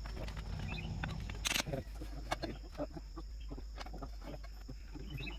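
Scattered clicks and knocks of hand tools on the steel track of a Komatsu excavator as the track shoe bolts are worked on, with one sharper knock about one and a half seconds in, over a low steady hum.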